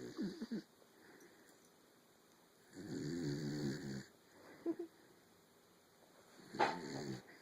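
Snoring: two long snores, one about three seconds in and one near the end, with shorter snorts at the start and in the middle.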